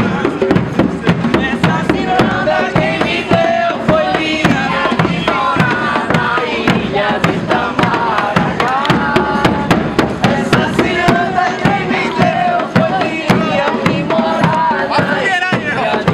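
Northeastern Brazilian folk music: voices singing over a steady, fast drum beat.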